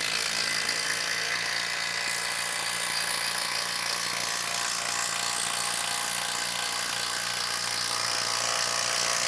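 DeWalt 12V Xtreme brushless impact driver on high speed, hammering steadily under load as it drives a 6-inch screw into wood with a 5/16 nut setter.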